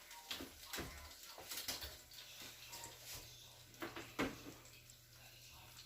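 Faint scattered knocks and clinks of a hot baking pan being handled, with a low steady hum that starts about two seconds in.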